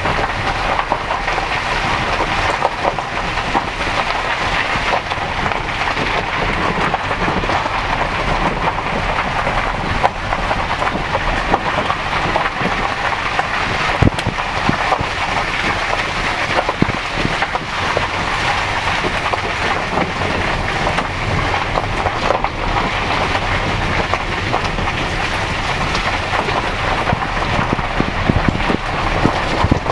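Steady ride noise of an open garden shuttle buggy on the move, tyre and wind noise, with the odd knock.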